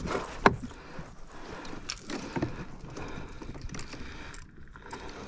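Handling noise of a striped bass in a landing net on a kayak deck: scattered knocks and rustling as the net, fish and gear bump the hull. The loudest knock comes about half a second in, with a few smaller ones around two seconds in.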